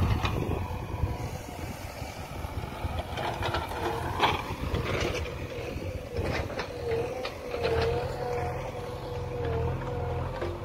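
JCB backhoe loader's diesel engine running steadily, with a held whine that wavers slightly in pitch, and a few sharp knocks in the first half.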